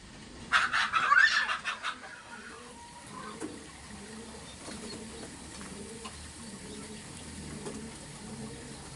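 A bird gives a loud, harsh burst of rapid squawking calls for about a second and a half, then fainter low sounds follow.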